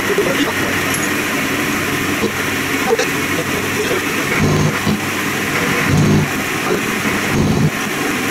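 WM210V-type benchtop metal lathe running steadily with its spindle at about 520 rpm while the turning tool takes a first roughing cut to round a bar held in the chuck. From about four and a half seconds in, an uneven, deeper rumble comes and goes over the steady running noise.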